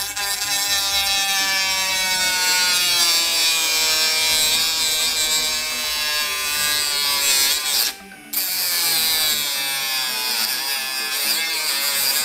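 A 12 V mini handheld rotary tool with a thin cutting disc spinning at speed and cutting into a printed circuit board. Its whine drops in pitch as the disc bites in, then wavers with the load. It cuts out briefly about eight seconds in, then the cutting resumes.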